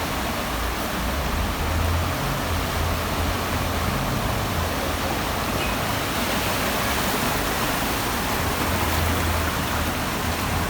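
Steady, loud rush of floodwater from a river in spate, with a low rumble that swells and fades underneath.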